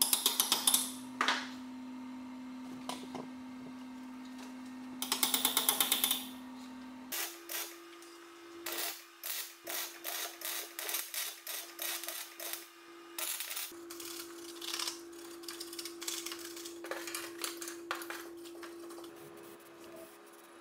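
MIG welder tack-welding steel brackets onto an ATV's front rack: loud crackling bursts in the first second and again about five seconds in, then a run of short tack welds about one or two a second. Hammer taps on the brackets come in between, and a low steady tone runs underneath, changing pitch about seven seconds in.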